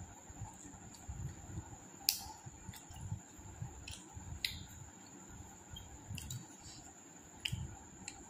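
Faint eating sounds: scattered sharp mouth clicks and smacks with soft chewing thuds between them, over a steady high-pitched whine.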